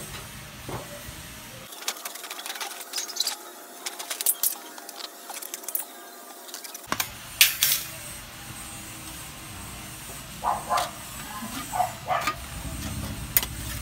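Tin snips cutting thin galvanized steel sheet: a series of sharp, crunchy snips and clicks, with a quick run of cuts in the last few seconds.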